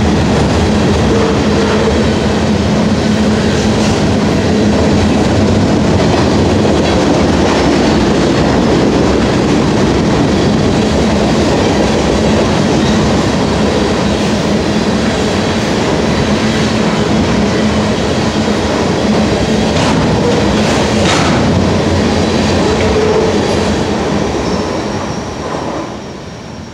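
Freight train flatcars loaded with wind turbine tower sections rolling past close by: a steady, loud rumble of steel wheels on rail with clickety-clack over the joints and a couple of sharp knocks about twenty seconds in. The sound drops away near the end as the last car passes.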